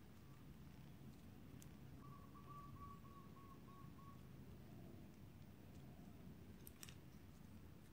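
Near silence: room tone, with a few faint clicks and, for about two seconds, a faint wavering whistle-like tone.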